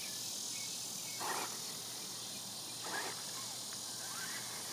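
Steady high-pitched chirring of insects, with two brief soft noises about a second and three seconds in.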